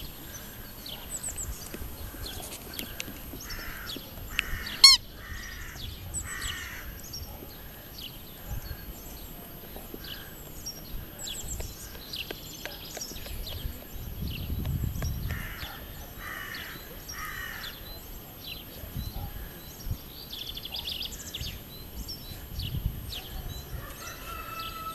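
A rubber chicken squeak toy squeaking and honking now and then as a puppy chews on it, with one loud, sharp squeal about five seconds in. Small birds chirp in the background.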